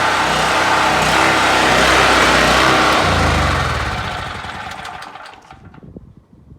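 Predator 4375 generator's single-cylinder engine running steadily, then faltering about three seconds in and winding down to a stop, fading out by about six seconds in. It is being shut down once it starts sputtering, to keep gas from sitting in the carburetor.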